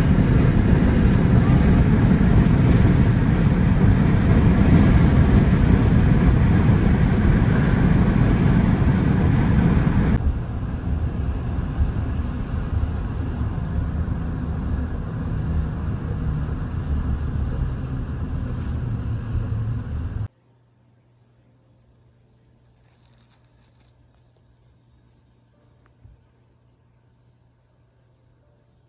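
Steady road and engine noise of a moving car, heard from inside: louder for about ten seconds, then quieter. About twenty seconds in it cuts off suddenly to a quiet scene with a steady, high-pitched chirring of crickets.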